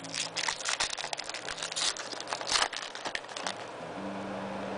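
Foil wrapper of a basketball trading-card pack crinkling and tearing as it is ripped open by hand, a dense run of sharp crackles that dies down after about three and a half seconds to a faint low hum.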